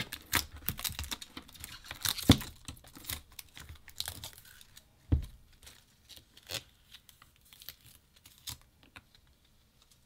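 Thin protective plastic film being peeled off a keyboard's translucent plastic case, with irregular crinkling and crackling and a few sharper clicks. It thins out and is nearly quiet near the end.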